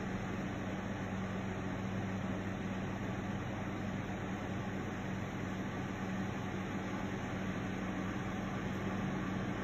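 COMLIFE fan heater running with its oscillation on: a steady rush of air with a low, constant hum underneath.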